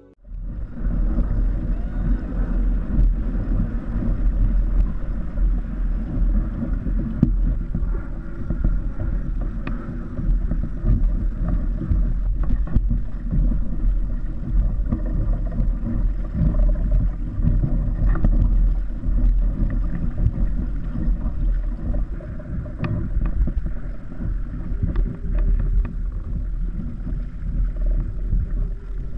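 Wind buffeting the microphone over the wash of water around a small kite-towed kayak, a rough, unsteady rumble with a few sharp little knocks or splashes scattered through it.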